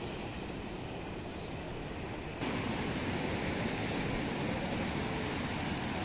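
Sea surf washing over and around coastal rocks, a steady rushing noise with a low rumble under it. About two and a half seconds in it jumps abruptly louder.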